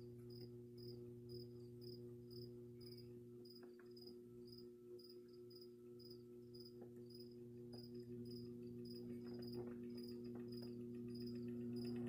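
Vintage Mistral Gyro Air box fan's electric motor humming steadily on its slow setting, just switched on, with the rush of air building toward the end. A faint high chirp repeats about two and a half times a second throughout.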